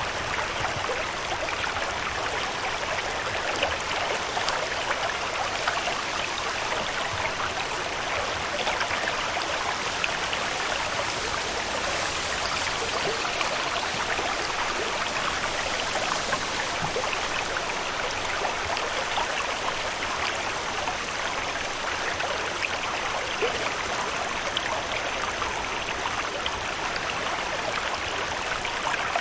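Steady rain ambience: an even hiss of falling water dotted with many small drop ticks.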